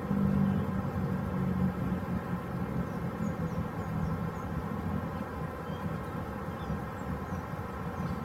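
A steady engine drone, slightly louder in the first couple of seconds, with scattered short high bird chirps over it.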